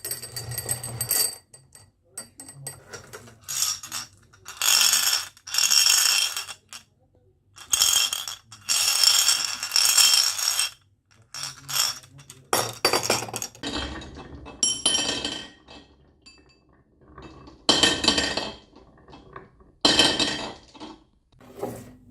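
Marbles rolling and clattering down a wooden marble-run track, with clinks as they knock together. The runs come in repeated spells of one to two seconds with short gaps between them.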